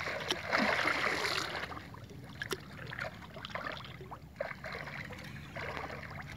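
Hooked giant snakehead (toman) thrashing and splashing at the surface, loudest in the first second and a half, then quieter swirling water with a few sharp clicks and two shorter splashing spells near the end.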